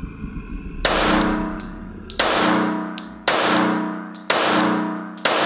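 Five shots from a Glock 21 .45 ACP pistol, fired about a second apart, each a sharp crack followed by a long ringing tail.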